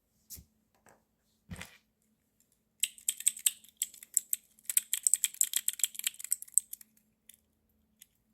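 Two soft thumps, then about four seconds of rapid, light clicking and clattering, like small hard objects being handled or keys being tapped quickly.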